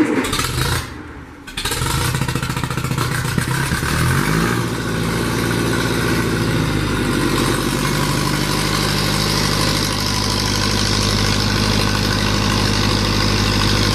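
1958 Massey Ferguson 35's four-cylinder Continental gasoline engine started cold on choke. After a short burst and a brief dip it catches about a second and a half in, runs unevenly for a few seconds, then settles into a steady run.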